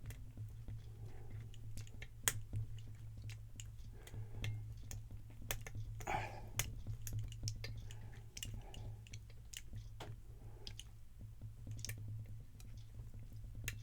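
Lock pick and tension wrench working the pins inside a Guard 365 padlock: small irregular metallic clicks and scrapes, with one sharper click about two seconds in, over a steady low hum.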